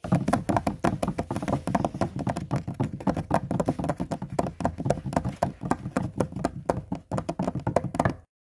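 Rapid, irregular tapping and knocking, several sharp strikes a second, which stops abruptly near the end.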